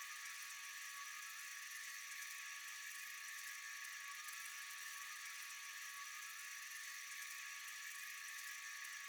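Steady, high-pitched chorus of night insects: a dense continuous trilling hiss with a few held tones, unchanging throughout.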